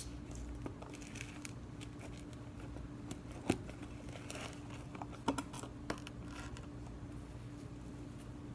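Small handling sounds of a plastic container of instant snow powder: soft crinkling and rustling with a few sharp clicks and taps, the loudest about three and a half seconds in, over a faint steady hum.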